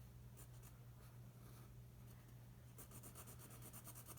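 Faint scratching of a pen on paper in short strokes, quickening into a rapid run of strokes in the second half, over a steady low hum.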